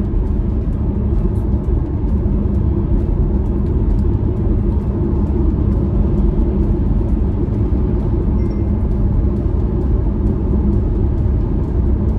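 Steady low road-and-tyre rumble with engine hum inside an MG Hector's cabin, cruising on a highway at about 90 km/h.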